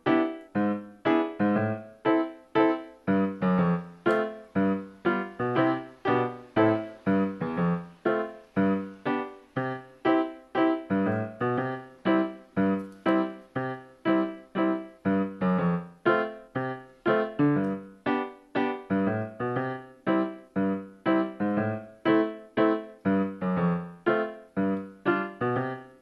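Background piano music: a steady run of single keyboard notes, about two a second, each dying away quickly.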